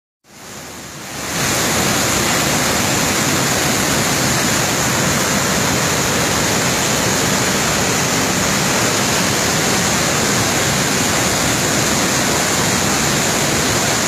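Waterfall in heavy flood: a loud, steady rush of falling water that comes in over the first second and a half and then holds level.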